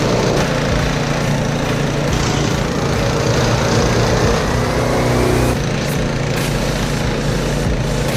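Husqvarna ST 224 two-stage snowblower running steadily while blowing snow. A faint whine rises in pitch for a couple of seconds, then stops abruptly about five and a half seconds in as the running sound shifts.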